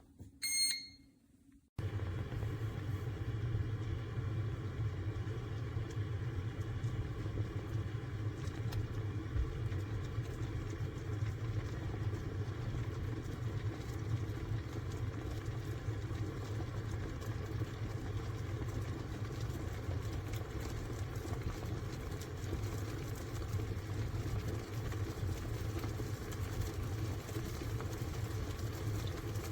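Electric kettle beeping once, then a steady low rumble and hiss of water heating in the kettle starting suddenly.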